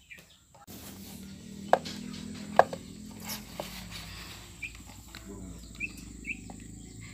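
Three sharp knocks, roughly a second apart, over a steady low background hum, with a few faint short chirps later on.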